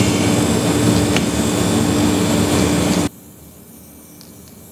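Sprayer hissing steadily as it sprays coloured cocoa butter, over a steady background hum. About three seconds in the sound drops abruptly to a much quieter background with a few faint clicks.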